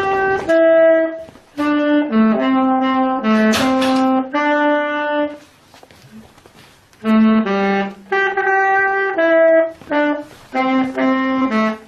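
Saxophone played by a learner practising, a short melody of separate held notes, then the same kind of phrase again after a pause of about two seconds.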